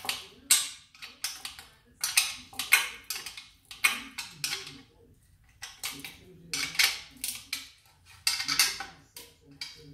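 Metal hand tools clinking and rattling against a steel scooter frame as its bolts are worked, in short irregular bursts of clatter.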